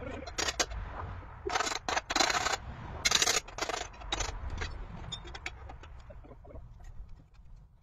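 Several short bursts of scraping noise, loudest in the first half, then scattered light clicks, over a steady low rumble.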